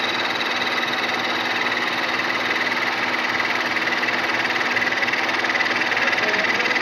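Manual milling machine running steadily: an even machine hum with a steady high whine from the motor and gearing.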